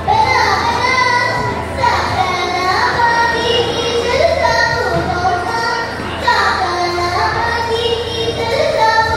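A young girl singing a melody into a microphone, amplified, with long held notes that glide up and down between pitches.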